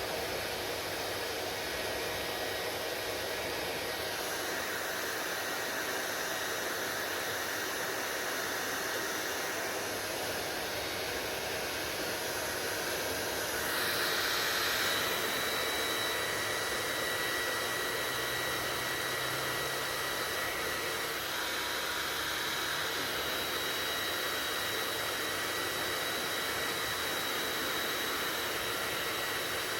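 Hair dryer running steadily, a constant rush of blown air. About halfway through it gets a little louder and a thin, high, steady whine comes through.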